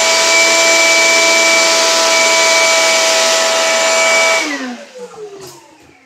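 Shop vac running at full speed, a steady motor whine over rushing air, as its hose sucks the leftover grounds out of a coffee grinder's burr chamber. It is switched off a little past four seconds in and the whine falls in pitch as the motor spins down.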